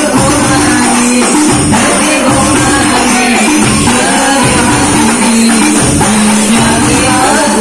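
Sholawat devotional music: singing over frame drums with jingles, with sustained held notes beneath.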